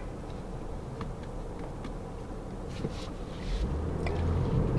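Low engine and road rumble inside a Jeep's cabin, growing louder about three and a half seconds in as the vehicle picks up speed.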